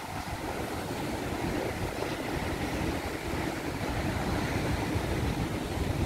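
Heavy sea surf surging and breaking, mixed with wind: a steady wash of noise that grows slowly louder.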